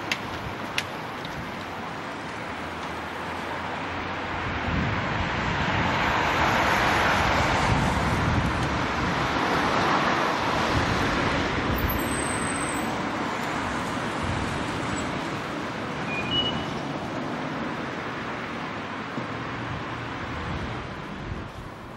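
Street traffic: a car passes close by, its engine and tyre noise swelling over several seconds and then fading back into the steady hum of traffic.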